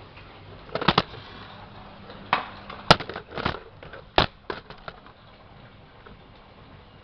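Washing machine running with a faint steady hum, and a run of irregular knocks and clicks over the first five seconds.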